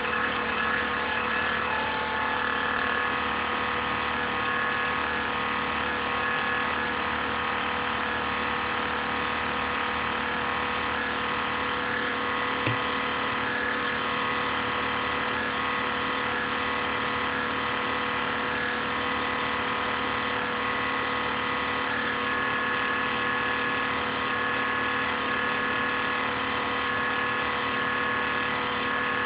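INSYS GameForce laptop cooling fan running with a strange, steady noise: a constant hum with several high tones held over it. Recorded on a phone, so it sounds somewhat distorted.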